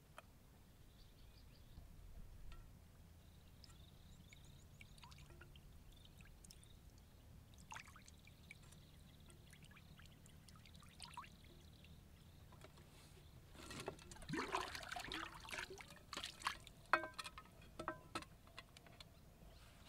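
Water poured from a small pan over a skewer of small fish, trickling and splashing onto a wooden board, to rinse the fish. A few sharp knocks near the end as the pan and skewer are handled.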